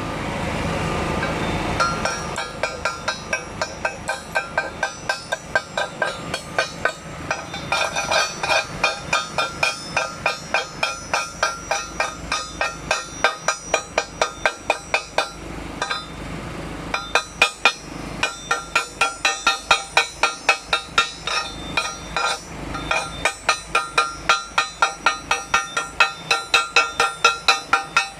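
A hammer tapping steadily on steel, about three ringing strikes a second, with a short pause about sixteen seconds in. A steady noise comes before the tapping for the first couple of seconds.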